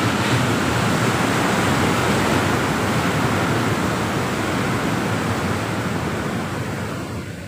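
Heavy sea surf breaking against rocks, a loud steady rush of churning white water that eases slightly near the end.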